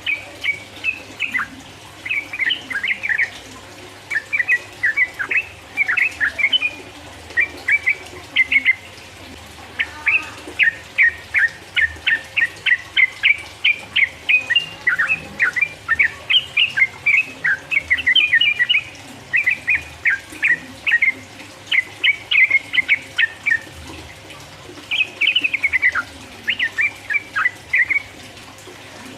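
Yellow-vented bulbul (trucukan) singing in long, rapid runs of chirpy notes, the 'ropel' rattle-like song, broken by short pauses between phrases.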